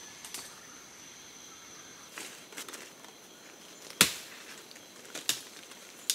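Sharp chopping strikes of a blade into wood, one about four seconds in, another a little over a second later and one more near the end. A steady high insect buzz from the forest runs underneath.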